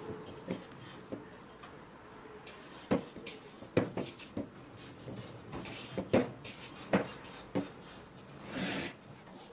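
Hands kneading a soft, slightly sticky dough in a wooden bowl: irregular soft thumps and knocks as the dough is pressed and folded against the wood, with a brief rubbing swish near the end.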